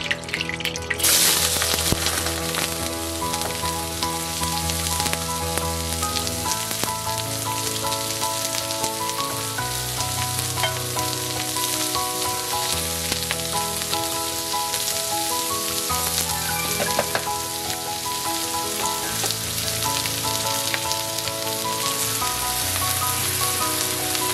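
Sliced red onions frying in hot oil in a wok: a loud sizzle that jumps up about a second in as they go into the pan, then carries on steadily. Background music with a bass line plays underneath.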